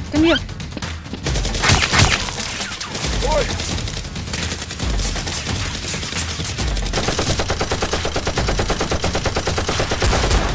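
Rapid gunfire: scattered shots at first, then from about seven seconds in a fast, even rattle of automatic fire.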